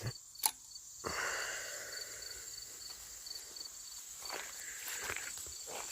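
Quiet outdoor ambience of insects, a steady high buzz with a small chirp repeating about three times a second, under a few soft footsteps in dirt and grass.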